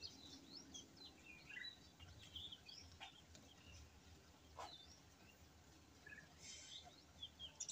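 Near silence, with faint, scattered bird chirps in the background.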